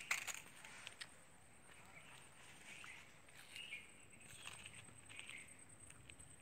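Quiet forest ambience, close to silence, with faint scattered bird chirps and a steady faint high whine. A sharp click comes right at the start and another about a second in.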